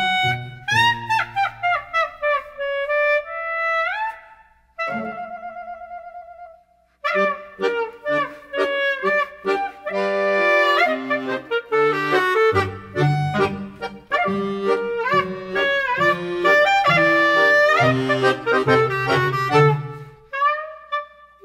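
Background music: a lively instrumental tune of quick melodic notes over a bass line, which thins briefly to a single wavering held note about five seconds in before the full tune resumes.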